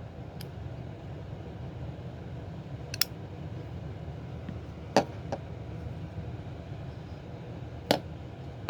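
Mtech karambit folding pocket knife being worked open and shut, giving about five sharp separate clicks of the blade and its lock, over a steady low hum.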